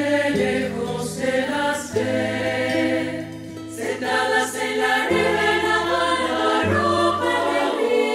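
Women's choir singing in harmony over low held accompaniment notes that change every second or two.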